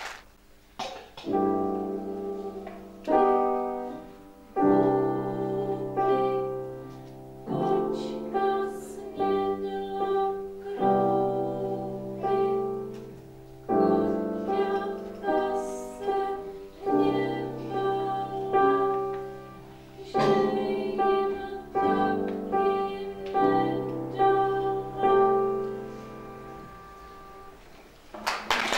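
Grand piano played by a child: a short piece of chords struck every second or two, each ringing and fading before the next.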